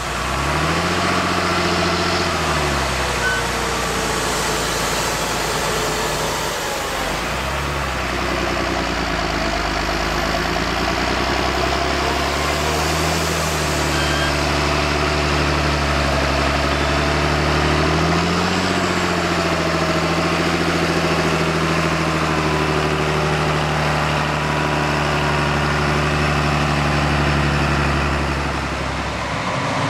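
Heavy diesel engines of harvest machinery running, the engine note rising and falling several times.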